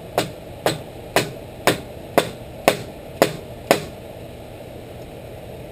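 A dead-blow hammer gently tapping on a pipe nipple, driving a new ball bearing onto a Shopsmith 10ER quill spindle. There are eight even taps, about two a second, that stop just under four seconds in.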